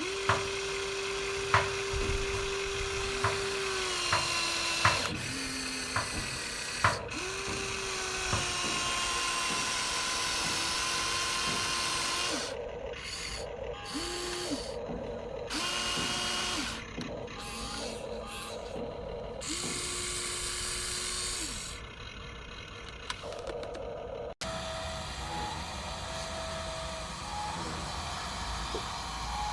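Small electric motors of a toy RC excavator whining in repeated runs of one to several seconds, starting and stopping again and again, with a few sharp plastic clicks in the first seconds.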